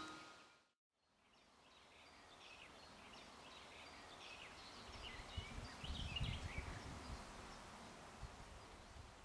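Faint forest ambience fading in: small birds chirping and twittering over a steady soft hiss, with a low rumble about midway. It follows the tail of glockenspiel-like music fading out in the first second.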